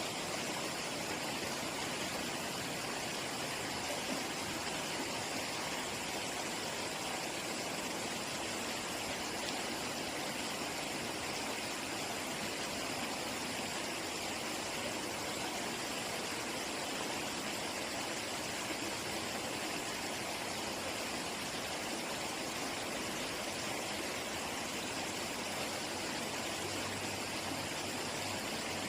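Running water: a steady, unbroken rush, even throughout with no distinct splashes or events.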